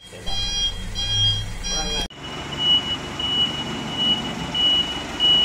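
Truck reversing alarms over idling diesel engines. First comes a multi-tone chime alarm in three short bursts. After a sudden cut, a single high-pitched reversing beeper pulses about one and a half times a second.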